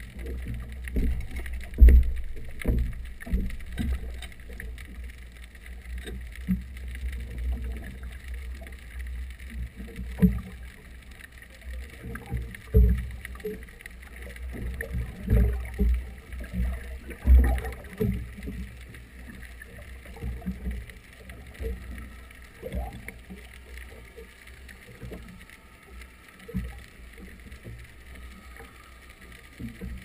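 Muffled underwater sound of exhaust bubbles around twin Yanmar sterndrives: a low rumble with irregular thumps and gurgling pops, which thin out and grow quieter after about 18 seconds as the bubbles clear.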